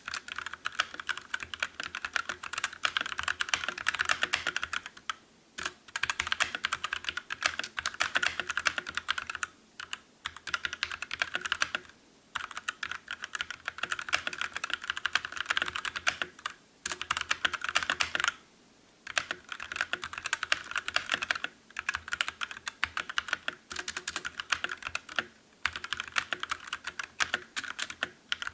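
Fast typing on a Drevo Calibur mechanical keyboard with Outemu Red linear switches: dense runs of key clacks broken by brief pauses every few seconds.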